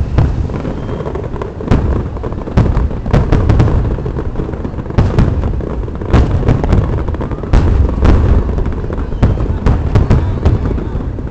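Fireworks display: aerial shells bursting in an irregular rapid series of deep booms and sharp cracks, one after another.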